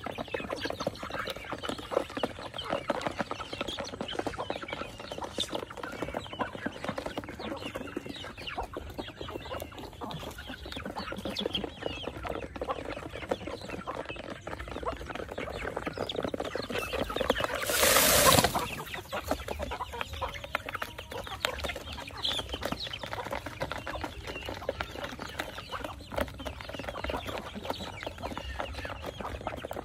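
Flock of chickens clucking as they feed, with many small ticks from pecking and scratching. About two-thirds of the way through there is one loud rush of noise lasting a second or so.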